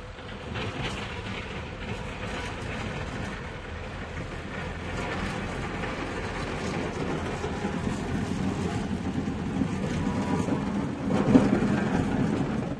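Tractor engine running with a rapid, even firing rumble, growing steadily louder, with a brief louder swell about eleven seconds in before the level drops off.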